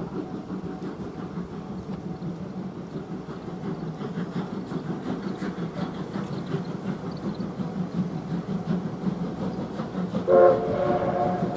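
C58 239 steam locomotive approaching out of sight, its working rumble slowly growing louder, then one short blast of its steam whistle, a chord of several tones, about ten seconds in.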